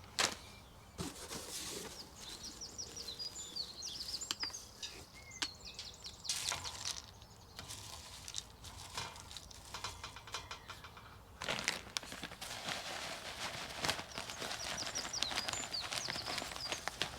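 Small birds chirping in short high twitters, mixed with close clicking and rustling as suet pellets and mealworms are handled and poured into a plastic bird feeder.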